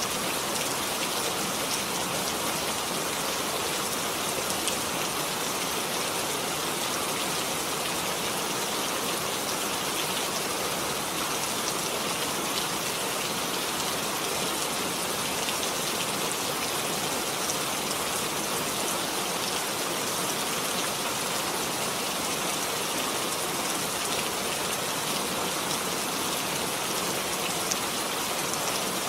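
Steady rain falling, a dense even hiss with fine patter of drops on a surface.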